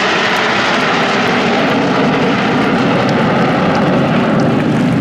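Turbojet engines of a formation of Aermacchi MB-339 PAN jets flying over, a loud, steady rushing noise that turns deeper from about halfway through.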